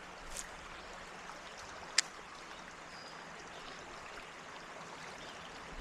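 Small creek running steadily, with a single sharp click about two seconds in.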